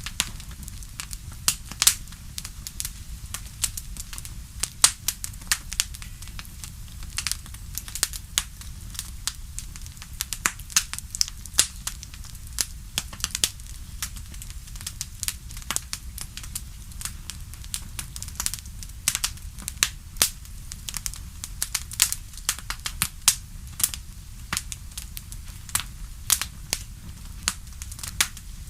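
Wood fire in a fireplace crackling: many irregular sharp snaps and pops, some much louder than others, over a steady low rumble.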